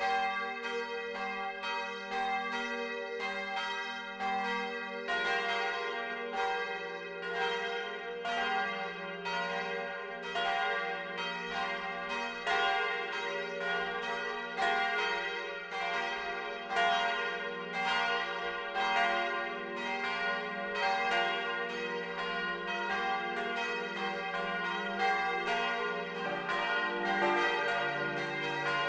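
Full peal of four bronze church bells tuned d', f', g' and b', cast by Junker of Brilon, swinging and striking in quick, overlapping strokes, heard up close inside the bell tower. The sound grows fuller as lower tones come in about five seconds in and again near the end.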